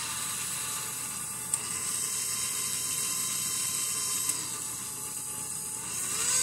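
Synthesized diesel-engine sound from an MRC Sound and Power 7000 train controller, played through its loudspeaker: a steady electronic rattling hum whose pitch steps up about a second and a half in, sinks back between about four and six seconds, and rises again at the end as the controls are worked. Two sharp clicks come from the controller's switches.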